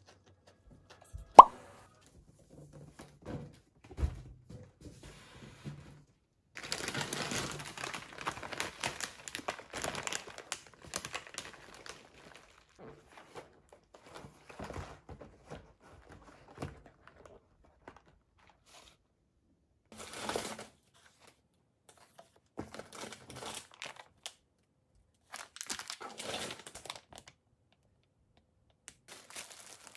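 Grocery packaging handled by hand: a plastic bag crinkling and rustling in a long stretch and then several shorter bursts. There is a sharp knock about a second in, the loudest sound, and a duller thump a few seconds later, as of packages knocked against a table.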